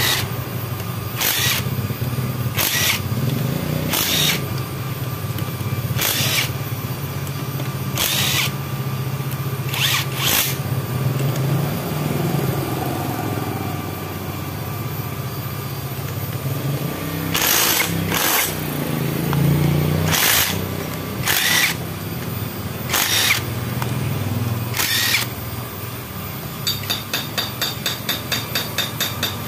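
Hand tools working the crankcase bolts of a Honda Megapro engine: sharp metallic clicks every second or two, then a quick run of clicks, about five a second, near the end, over a steady low hum.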